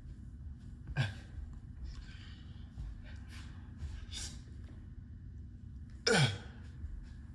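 A man's sharp, forceful breaths out from exertion during push-ups: two loud ones with a falling pitch, about a second in and near the end, with quieter breaths between.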